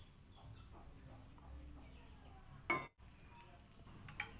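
Cooking oil being poured from a bottle into a wok, a faint trickle, with one sharp clink about two and a half seconds in.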